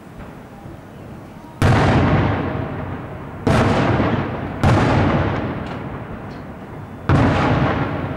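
Aerial firework shells bursting: four loud bangs, the first about a second and a half in, each trailing off in a long rumble.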